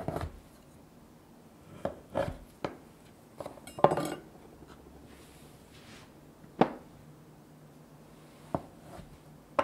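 A series of about nine separate light knocks and clinks as kitchen items are handled and set down on a hard surface, the loudest about four seconds in.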